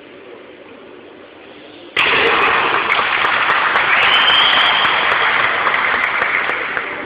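An audience bursts into loud applause and cheering about two seconds in, greeting a successful karate board break, and it slowly dies down near the end.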